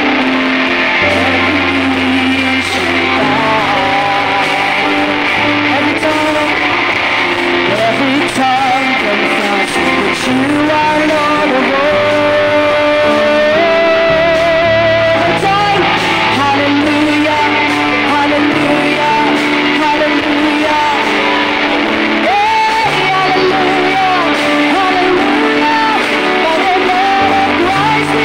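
Live worship band playing a song: a sung melody over bass guitar, electric guitar, keyboard and drum kit, amplified through the hall's speakers. The bass moves in steady stepped notes under the voice.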